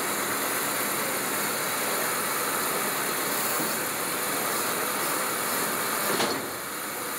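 A tow truck's engine running steadily, with a single clunk about six seconds in, after which the sound drops a little.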